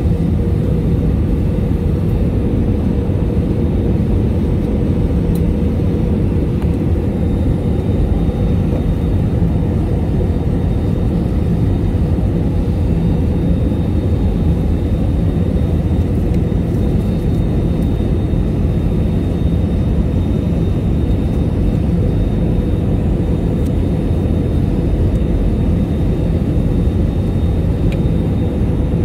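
Airbus A320 cabin noise on approach with the landing gear down: a steady low rumble of engines and rushing air, with a steady hum through it.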